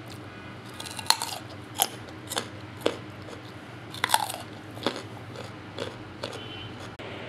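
Raw carrot being bitten and chewed, with a run of sharp, loud crunches, the strongest about one and four seconds in.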